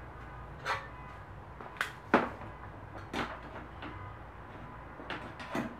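A handful of short, sharp clicks and knocks at irregular intervals, the loudest about two seconds in: handling noise from tools, probe leads or parts being worked with by hand.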